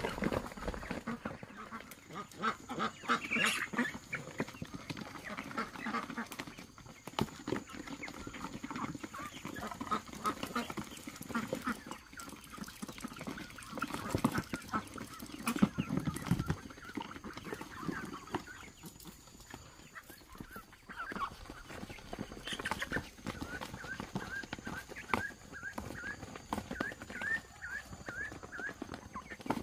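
Domestic fowl calling, with a run of short rising peeps near the end and scattered knocks and rustling.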